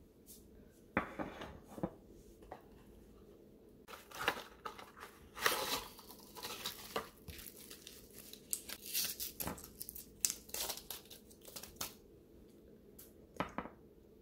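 Foil blister pack and its cardboard box being handled, crinkling and crackling in bursts as capsules are pressed out through the foil backing.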